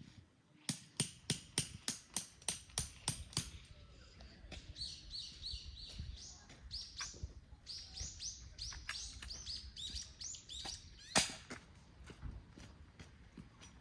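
A quick series of about ten sharp knocks, roughly three a second, in the first few seconds. Then a small bird chirps in a run of short, high, falling notes. One loud knock comes near the end.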